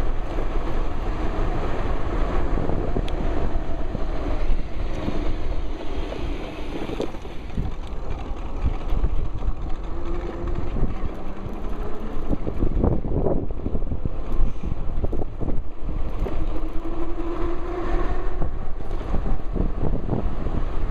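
Steady wind noise buffeting the microphone of a camera carried in a shirt pocket on a moving electric bike.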